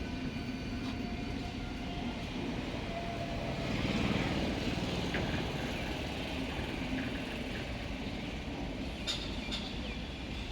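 Passenger train running on the rails, a steady rumble that swells about four seconds in, with a few sharp clicks near the end.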